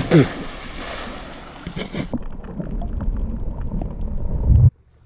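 A person plunging feet-first into a river with a loud splash at the start. About two seconds in the sound turns muffled and dull as the microphone is underwater, with low rumbling and small knocks, and it cuts off abruptly near the end.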